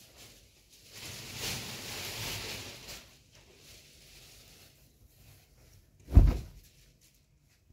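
Cupboard furniture being handled: a rustling, sliding noise for about two seconds, then a single heavy thump about six seconds in.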